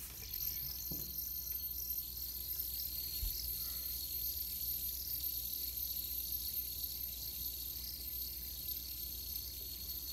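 Fidget spinner spinning steadily on its ball bearing, a steady high whirr.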